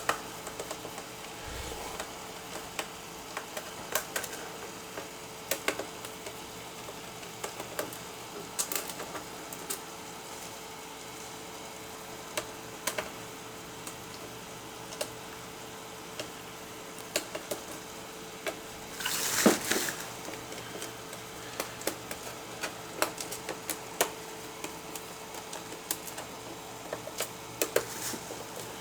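Irregular small clicks and taps of a screwdriver and screws being worked and handled on an Asus P553M laptop's plastic case, with one louder brief scrape about two-thirds of the way through, over a faint steady hum.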